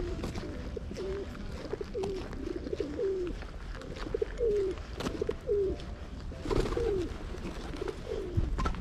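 Feral pigeons cooing, one short coo after another, each falling in pitch.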